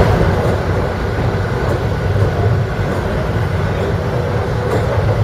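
Long-distance passenger train running, a steady rumble and wheel-on-rail noise heard from inside the carriage.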